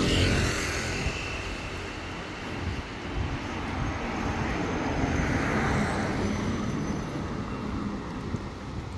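Road traffic: cars driving past on a street, a steady rush of tyre and engine noise that swells to its loudest about five seconds in and then eases off.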